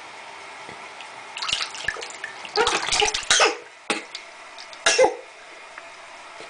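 Water splashing in a small plastic baby bath tub as a baby moves its hands, in a run of short splashes in the middle and one more sharp splash near the end.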